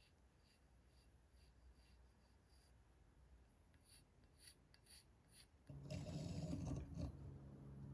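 Soapstone pencil scratching short strokes on a steel railroad rail, faint and repeated. About three-quarters through, the rail is shifted on the workbench, with a louder scrape and a low hum.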